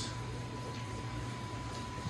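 Steady low hum with a thin, steady high tone above it and a faint even hiss; no distinct knock, rub or call stands out.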